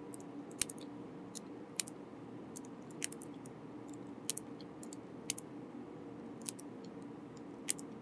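Plastic mechanical keyboard switches (Boba U4T) being pressed into a metal-and-FR4 switch plate and Kailh hotswap sockets, giving irregular sharp clicks as each one snaps in, more than a dozen, over a faint steady hum.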